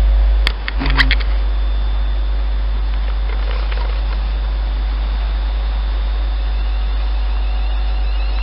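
Steady low rumble and hum inside the carriage of a Class 380 electric train, with a couple of sharp knocks about half a second to a second in.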